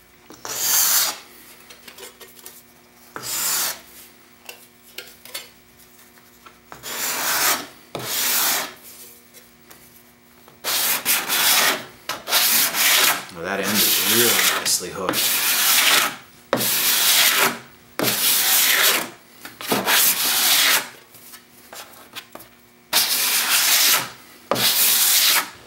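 Large Japanese saw blade, ground and hooked into a hand scraper, scraping across a wooden board in repeated dry rasping strokes. There are a few spaced-out strokes at first, then a steady run of quick back-to-back strokes from about halfway through.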